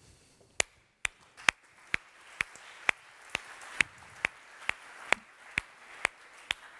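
Footsteps of hard-soled shoes on a hard floor: a sharp, regular tread of about two steps a second that stops near the end.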